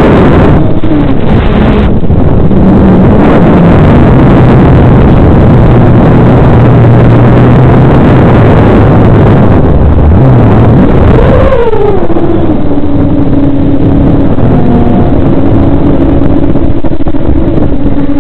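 FPV quadcopter's motors and propellers heard over its onboard microphone, mixed with heavy wind rush. The motor whine changes pitch with the throttle: it dips about ten seconds in, swells up again, then slides down and settles into a steady hum.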